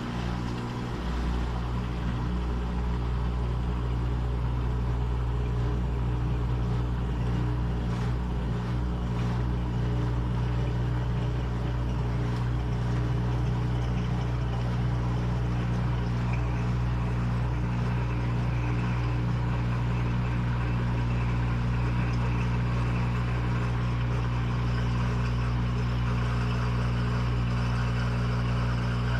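Washing machine running with a steady motor hum and a constant whirring noise.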